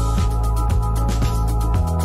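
Electronic background music with a steady beat, about two beats a second, over a held bass line.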